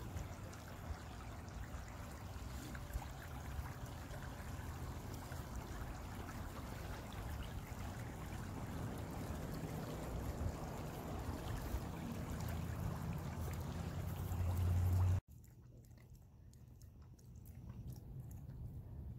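A creek flowing, a steady rush and ripple of water with a few light clicks, and a low rumble swelling just before the sound cuts off about fifteen seconds in. What follows is much quieter, with a few faint ticks.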